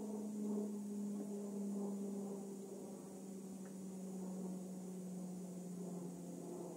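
A steady low hum that sinks slightly in pitch; no shot is fired.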